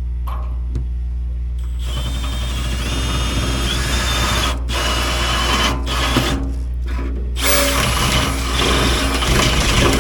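Power drill boring through the sheet-metal truck bed in several bursts, with short pauses between them. A steady low engine hum runs underneath.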